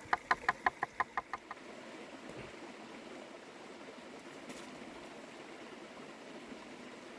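Knife chopping rapidly on a wooden cutting board, about six strokes a second, stopping about a second and a half in. After that there is a steady soft hiss of outdoor ambience.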